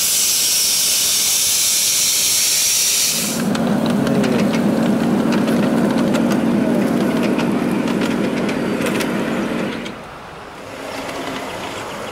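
Steam hissing loudly from a ridable live-steam model locomotive. About three seconds in it gives way to a steady low drone with scattered light clicks as a ridable model diesel-outline train runs along the track, dropping away near the end.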